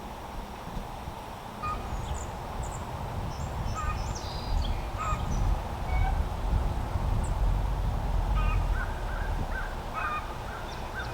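Birds calling outdoors, scattered short calls with a quick run of repeated calls near the end, over a low rumble that grows louder about two seconds in.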